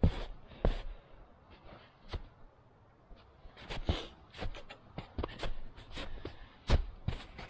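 Footsteps in snow: two sharp crunches near the start, then a run of quick, irregular crunching steps from about halfway in, the loudest near the end.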